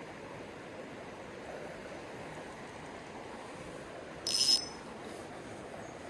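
Steady rush of a creek's flowing water. About four seconds in, a brief, sharp, high-pitched sound with several ringing tones cuts in over it.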